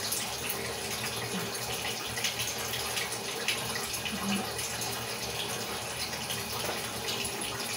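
Steady hiss of light rain falling, with a few faint clicks of a metal spoon against a plate.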